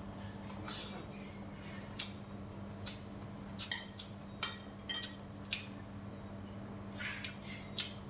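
Spoon and chopsticks clicking and tapping against ceramic bowls during a meal: a dozen or so light, irregular clicks over a steady low hum.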